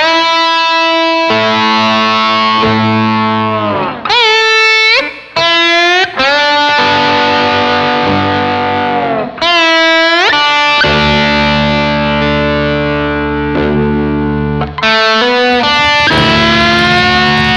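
Background music of distorted electric guitar: held notes and ringing chords, with several deep swoops where the pitch dips and bends back up.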